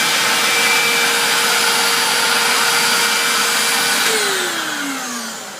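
Hoover vacuum cleaner running steadily with a high whine, then switched off about four seconds in, its motor winding down with a falling pitch.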